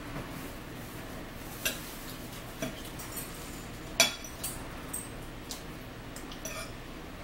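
Cutlery and dishes clinking during a meal: scattered light clicks of a fork against a plate, the sharpest about four seconds in.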